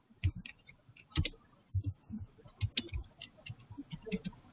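Typing on a computer keyboard: a run of irregularly spaced keystroke clicks.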